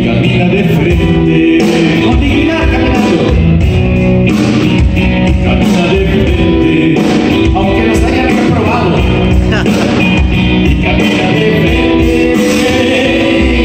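Live rock band playing loudly: electric guitar and drum kit keeping a steady beat, with a singer's amplified voice over them.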